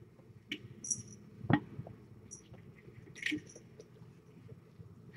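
Kitten scrabbling and tumbling inside a clear bowl: faint scratches, squeaks and knocks, with one sharper bump about a second and a half in.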